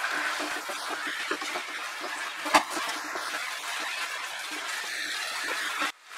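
Chicken in coriander masala sizzling in hot oil in a nonstick kadai while a wooden spatula stirs it: the masala being bhuna-fried on a high flame. There is one knock about two and a half seconds in, and the sound cuts out briefly near the end.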